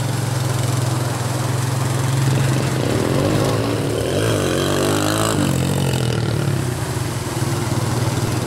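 ATV engine running steadily as the quad crawls through mud, its pitch rising and falling with the throttle for a couple of seconds midway and changing abruptly about five seconds in.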